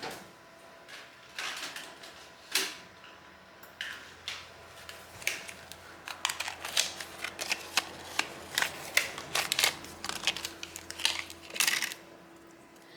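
Irregular clicks and scrapes of small tools and parts being handled by hand, coming thick and fast from about six seconds in and stopping about a second before the end, over a faint steady hum.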